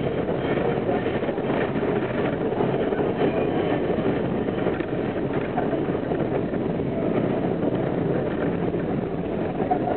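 R42 subway train running steadily through a tunnel, heard from on board: a continuous noise of wheels on rails and running gear, with no joints clicking out clearly.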